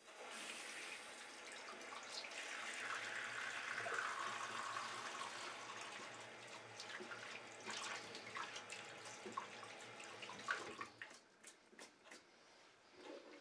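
Bathroom sink faucet running as hands are washed under the stream. The water shuts off about eleven seconds in, leaving a few light ticks.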